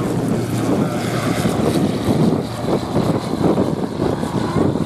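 Zenith CH701 STOL light aircraft's propeller engine running at full power as it climbs out just after takeoff, with gusty wind rumbling on the microphone.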